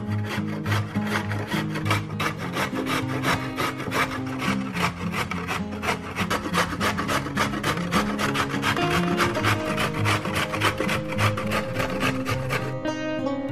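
A raw carrot grated quickly on a stainless-steel box grater, a fast rasping scrape several strokes a second that stops about a second before the end.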